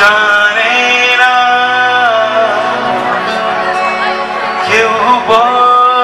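A man singing live through a stage microphone over instrumental accompaniment, holding long notes that slide in pitch into each new note.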